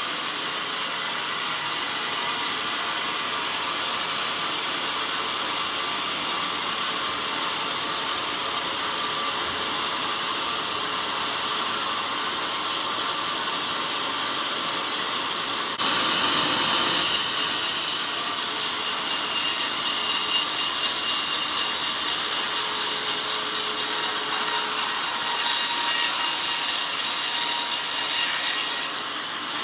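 Band sawmill blade cutting lengthwise through a log: a steady high hiss. About halfway through it gets louder and takes on a fast, even flutter, which eases off just before the end.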